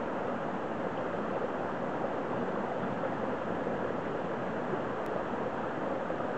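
Steady rush of a stream's running water, an even hiss that doesn't change.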